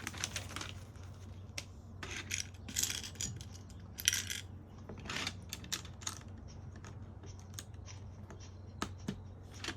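Small plastic LEGO pieces clicking and clattering as they are handled, in irregular short rattling bursts and single sharp clicks, over a faint steady low hum.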